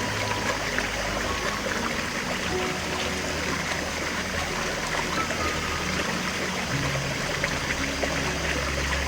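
Steady running water of a stream, trickling and splashing, with soft ambient music of long held notes underneath.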